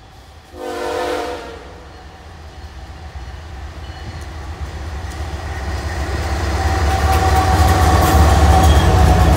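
Diesel locomotive horn giving one short blast, about a second long, about half a second in: a horn salute from the lead BNSF ES44C4. Then the locomotives' low engine rumble grows steadily louder as the train approaches and passes.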